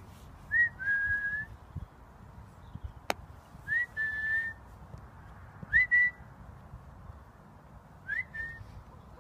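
A person whistling four times, about two seconds apart, each a short upward slide into a held high note. A single sharp click comes about three seconds in.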